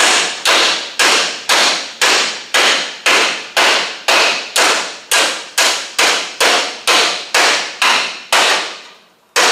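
Hammer blows on the steel front structure of a 1976 Mercedes unibody, about two a second, each one ringing and fading, with a short pause near the end. The metal is being knocked into line ahead of welding it back on.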